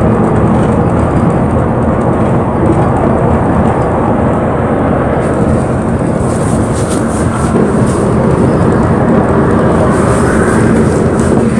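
Inside a moving bus: the engine runs with a steady low drone over road noise. From about halfway through, quick sharp high clicking joins in.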